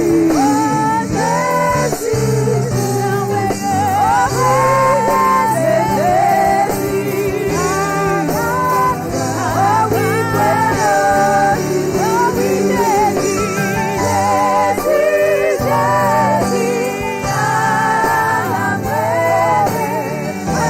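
Gospel worship song: singing voices with vibrato over instrumental accompaniment, with steady sustained bass notes underneath.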